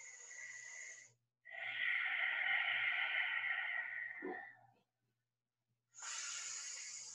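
A woman breathing audibly: a short breath at the start, a long, louder breath of about three seconds, then another breath beginning near the end.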